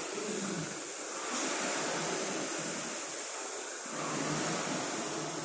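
Air-resistance rowing machine's fan flywheel whooshing as it is rowed hard, the whoosh swelling with each drive stroke, twice, about three seconds apart.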